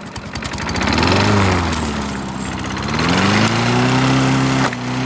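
Toro lawn mower engine revving up about a second in, easing off, then revving up again and holding. A single sharp crack near the end as the spinning blade strikes a golf ball.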